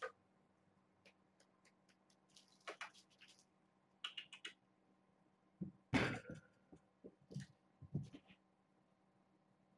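Faint scattered clicks and rustles from small handling movements, with a louder patch of rustling and a few soft thumps about six seconds in, over a low steady hum.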